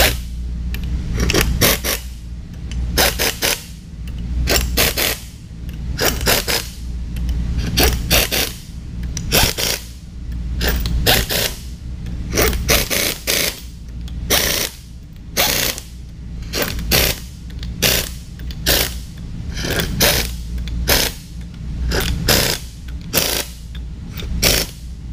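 Pneumatic impact wrench running the ring gear bolts down onto a differential carrier in short repeated bursts, about one a second, as each bolt is snugged in turn across the pattern. A steady low hum runs underneath.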